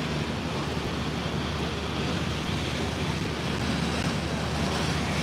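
Steady outdoor background noise: an even hiss with a constant low hum underneath, and no distinct events.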